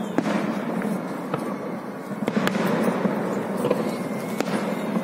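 Distant fireworks bursting: several sharp bangs and crackles about a second apart over a steady background rumble of noise.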